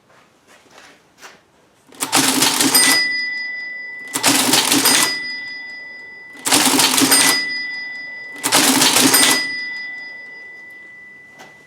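NCR Class 51 cash register cycled four times: each cycle is a second-long mechanical clatter that ends on the bell, which rings on and fades. The machine is working again after being cleaned of old gunked grease and relubricated.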